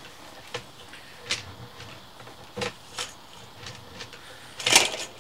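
Sewer inspection camera and its push cable being pulled back out of a drain pipe: a series of separate sharp clicks and knocks, with one louder, longer clatter near the end.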